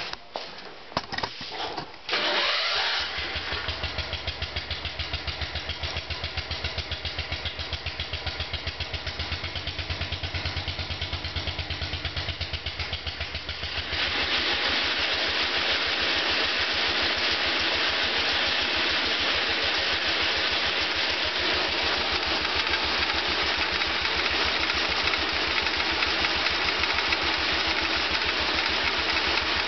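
Garden tractor engine starting after a few clicks and knocks, catching about two seconds in and then running with an even, rapid beat. About halfway through it grows louder and a steady rushing hiss joins in, holding to the end.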